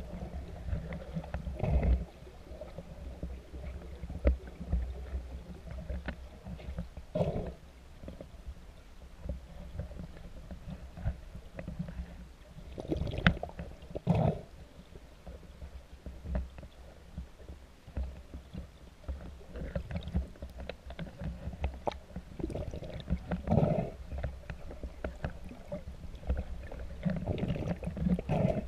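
Muffled underwater rumble and gurgling heard through a camera housing during a cenote scuba dive, with bursts of exhaled regulator bubbles every few seconds.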